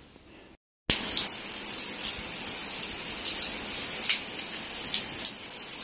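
Steady rain falling, a dense hiss dotted with many sharp drop taps, cutting in suddenly about a second in.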